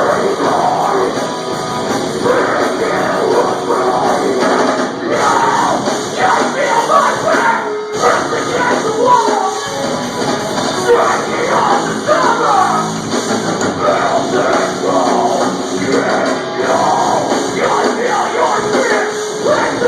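Live metalcore band playing loud, with distorted electric guitars, drums and a vocalist yelling, as picked up by a camera microphone in the room.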